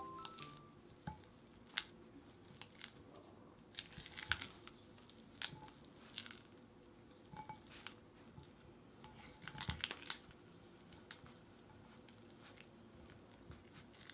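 Silicone spatula pressing and scraping softened brick cream cheese against the wall of a ceramic mixing bowl: faint squishy smearing with scattered light clicks and taps, bunched about four seconds in and again near ten seconds.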